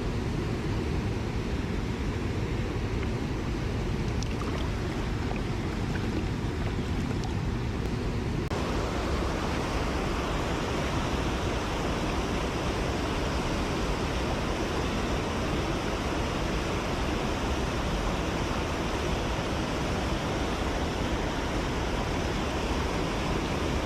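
Mountain stream water rushing steadily. About eight seconds in the sound abruptly becomes fuller and brighter, and it stays that way.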